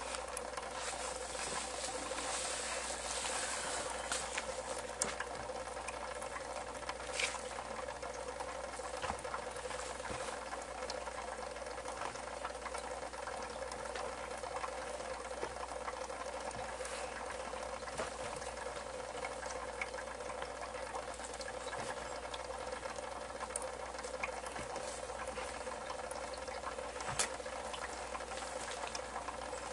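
Steady hum and watery bubbling of an aquarium, picked up from inside the tank, with a few faint clicks.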